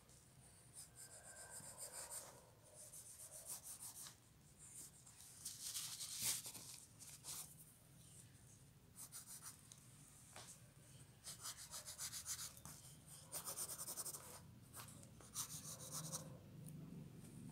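Faint pencil scratching on paper in quick hatching strokes, coming in bursts of rapid strokes one to three seconds long with short pauses between.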